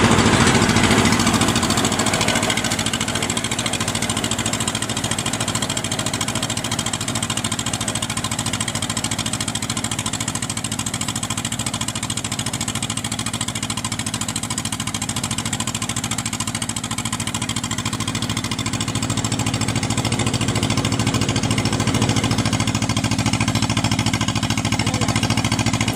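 Diesel engine of a Kubota DC70 rice combine harvester running steadily with a low, even hum, getting slightly louder near the end as the machine moves up.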